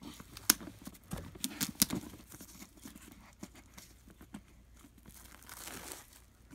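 Clear plastic shrink wrap being torn and peeled off a box set: irregular crinkling with sharp crackles, the loudest about half a second in and near two seconds.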